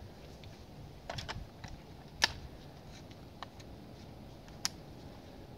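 Light metallic clicks from handling an AR-type short-barreled rifle while a suppressor is fitted to its muzzle: a few small clicks about a second in, one sharp click just after two seconds, and two fainter ones later. No shot is fired.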